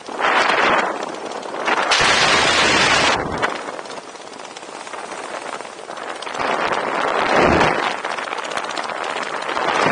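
Wind buffeting the helmet camera's microphone under an open parachute canopy. It comes in gusty surges of rushing noise, the strongest about half a second in, around two to three seconds in, and around seven to eight seconds in.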